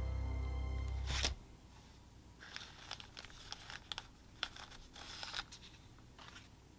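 Background music that cuts off about a second in, followed by a thin plastic zip-top bag crinkling and rustling in the hands, with a few sharp crackles, as it is opened and a photo-etched brass sheet is slid out.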